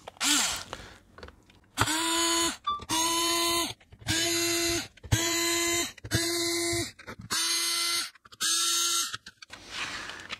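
Meterk cordless electric screwdriver driving out the triangle-head security screws of a plastic mains extension block: about seven short bursts of motor whir, each about a second long with a steady pitch, one burst per screw.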